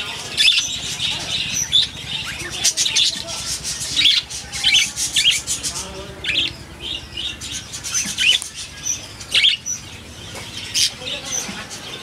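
A flock of caged budgerigars chattering: a continuous stream of quick high chirps and warbles, with louder calls breaking out every second or so over a faint low hum.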